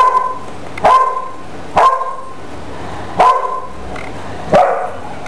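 A puppy barking repeatedly: five short barks about a second apart.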